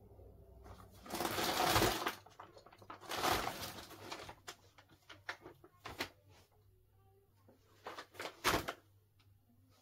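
Handling and rummaging noises: two longer rustles about a second in and about three seconds in, then scattered clicks and knocks, with another cluster of them near the end.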